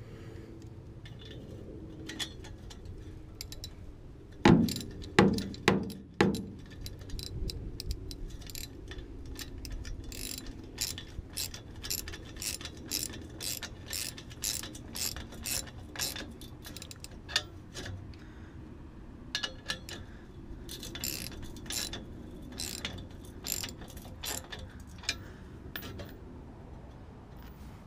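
Hand ratchet clicking in short runs as the clamp bolt on an exhaust tip is tightened. There are a few louder knocks about four to six seconds in.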